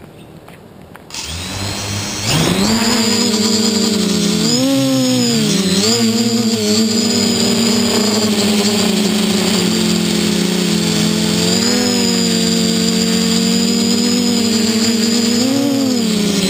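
Quadcopter with four SunnySky 2212 980kv brushless motors and 10x5 props: the motors start spinning about a second in, throttle up to lift off about two seconds in, then hold a steady buzzing hover whose pitch wobbles up and down as the motor speeds shift, heard from the GoPro mounted on the craft.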